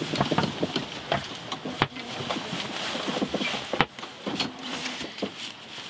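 Cabin noise of a sailboat under way: a steady hiss with scattered clicks and knocks. A sharper knock comes about two-thirds of the way through.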